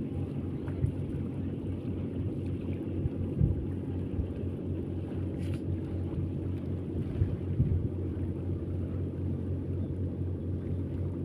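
An engine running steadily with a low, even hum, with a few soft knocks over it.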